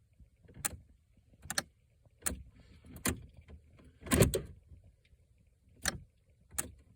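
Irregular sharp clicking from the body control module of a 2008 Pontiac G6 GT as the key is turned, with no starter or engine sound, and a louder clatter about four seconds in. The owner takes the clicking for the sign of a failing body control module behind the no-crank, no-start fault.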